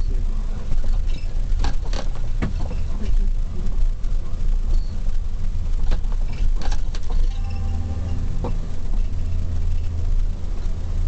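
Steady low vehicle rumble, heard from inside the car, with scattered knocks and rattles.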